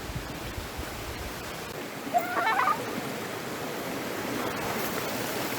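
Steady rushing of a rocky mountain stream, growing slowly louder, with one brief high call about two seconds in.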